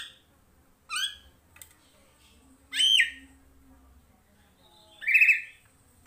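Caged kepodang timur, an oriole, giving three short, loud calls about two seconds apart.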